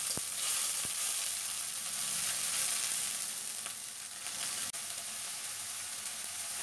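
Onion, chilli and spice-paste base sizzling steadily in oil and water in a metal karahi as it is stirred, with a few faint clicks.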